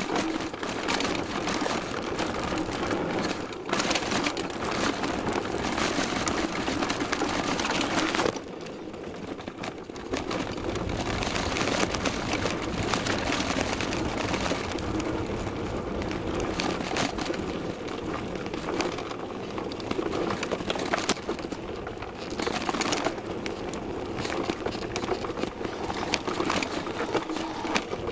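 Downhill mountain bike clattering over a rough forest trail, heard close up from a camera mounted on the bike: a continuous rush packed with rapid knocks and rattles. It eases off for a couple of seconds about eight seconds in.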